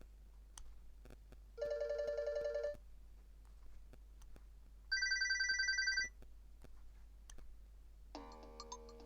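Nokia 7710 mobile phone ringtone: two short, rapidly warbling ring bursts about a second each, the second pitched much higher than the first. Near the end another ringtone starts with a run of melodic notes.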